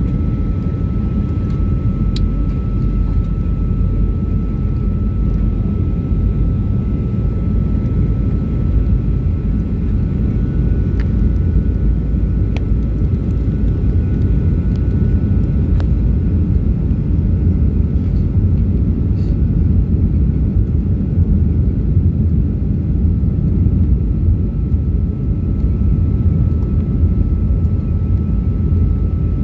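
Jet airliner cabin noise heard from a window seat during descent: a steady deep rumble of the engines and rushing air, with a faint steady high whine over it.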